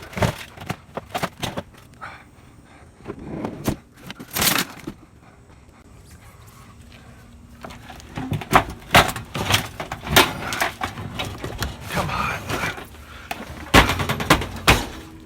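Scrap being shoved and wrestled into a crowded cargo van: a string of sharp metal clanks, bangs and thuds with scraping, thickest in the second half.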